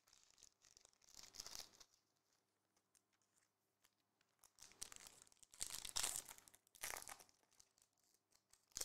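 Foil trading-card pack wrapper crinkling and being torn open, in a series of short bursts in the second half with a last brief rip near the end.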